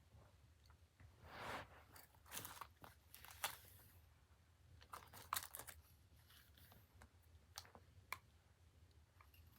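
Faint handling noise: scattered rustles and short scrapes, with a few sharp clicks near the end, over a low steady hum.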